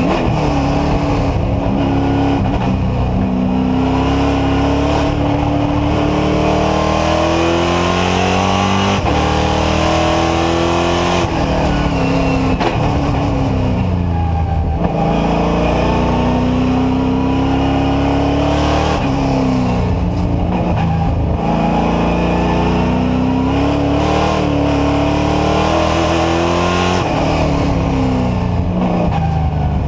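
NASCAR Whelen Euro Series race car's V8 engine at racing speed, heard from inside the cockpit. It climbs in pitch under full throttle, with several sharp drops as the driver shifts gear or lifts off for corners.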